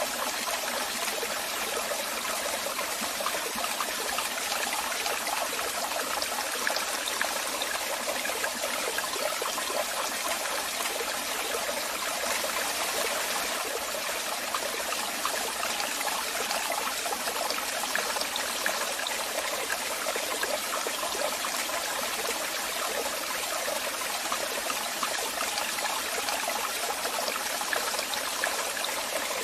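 Waterfall: water falling and splashing in a steady, even rush, strongest in the upper range with little deep rumble.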